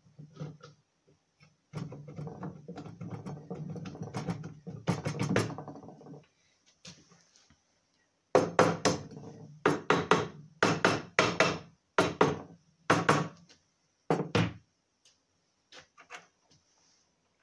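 A soft-faced mallet taps the aluminium crankcase halves of a BSA C15 engine, driving them together over the crankshaft. There are about ten blows in quick succession, after a few seconds of rattling as the case is handled.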